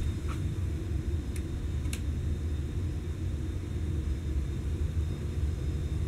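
Encon Monarch ceiling fan running at speed: a steady low rumble from the motor and the air it moves. A couple of faint clicks come between about one and two seconds in.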